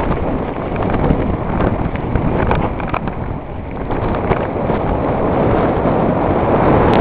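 Wind buffeting the microphone of a mountain biker's camera during a downhill ride on a rough dirt and stone trail, with scattered clicks and rattles from the bike over the ground.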